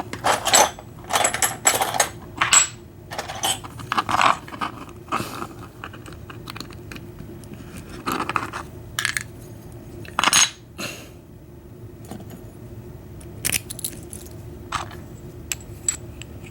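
Small metal parts of a disassembled padlock, such as pin tumblers, springs and the lock body, clinking and clicking against each other and a hard surface as they are handled. The clicks come in irregular clusters, the busiest in the first few seconds.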